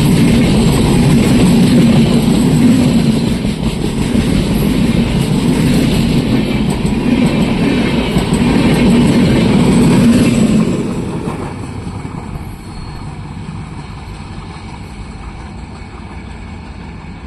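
Train passing at speed, a loud rumble of wheels on rails that drops off sharply about ten seconds in as the train moves away, leaving a fainter steady rumble.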